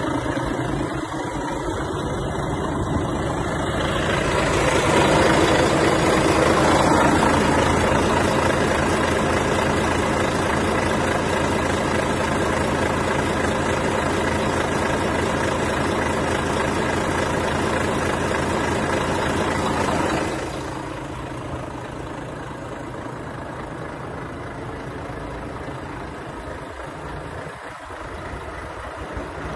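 Volvo FH 500 truck's 13-litre straight-six diesel idling steadily. It grows louder through the middle, then falls away sharply about twenty seconds in.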